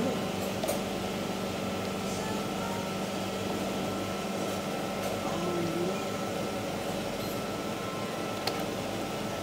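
Ice cream batch freezer running with a steady mechanical hum while it extrudes freshly churned gelato from its open dispensing door.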